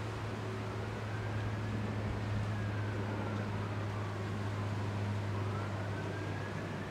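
Emergency-vehicle siren wailing slowly up and down in the distance, rising and falling about every five seconds, over a steady low engine drone.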